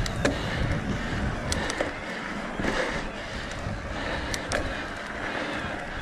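Haibike AllMtn 3.5 e-mountain bike ridden up a dirt flow trail: tyres rolling over the ground, wind rumbling on the microphone, and scattered clicks and rattles from the bike.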